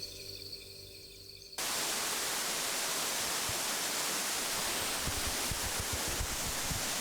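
Steady, even rush of water, cutting in abruptly about a second and a half in.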